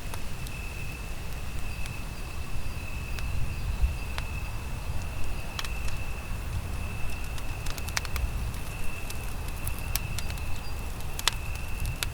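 Campfire burning, with irregular sharp wood crackles and pops over a low rumble. A thin steady high-pitched whine runs underneath.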